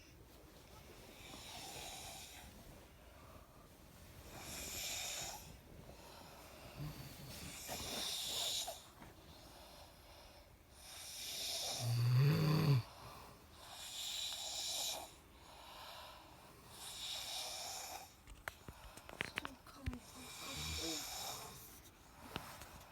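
Sleeping people snoring, a raspy snore on each breath about every three seconds. The loudest one, about halfway through, has a deep rattle.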